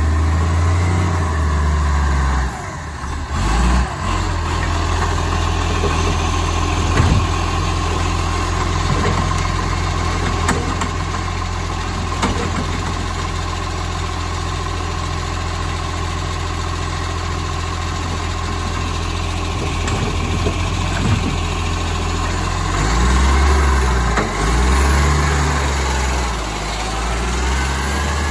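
Side-loading garbage truck's diesel engine running steadily, speeding up near the start and again near the end as the hydraulic lifting arm works a wheelie bin over the hopper. A few sharp knocks in the middle.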